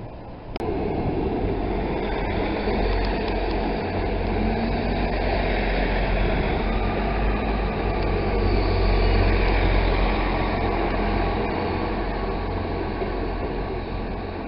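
A South West Trains Class 159 diesel multiple unit passing close by and moving away, its underfloor diesel engines running with a steady low hum over the rumble of wheels on the rails. The sound swells a little about two-thirds of the way through.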